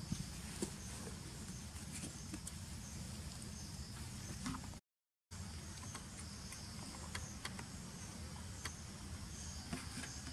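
Insects chirring steadily in the background over a low rumble, with scattered light clicks. The sound drops out completely for about half a second near the middle.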